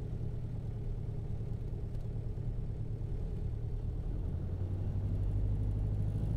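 Cessna Cardinal's single piston engine droning low, heard inside the cockpit. It grows louder from about four seconds in as power comes up for the takeoff roll.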